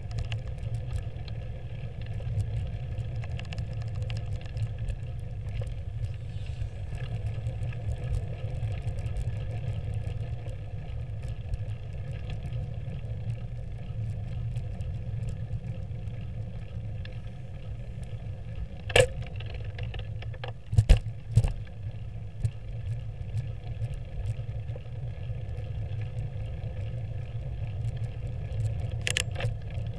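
Steady low wind and road rumble on a bicycle-mounted camera riding over asphalt. A few sharp knocks come through: one about two-thirds of the way in, two close together a couple of seconds later, and one near the end.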